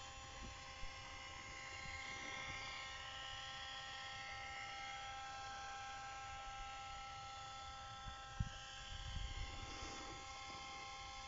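Alfa Romeo 156 2.5 V6 making a strange, steady electrical buzz with a high whine that its owner cannot explain. A couple of brief low thumps come through, one about a second in and one near the end.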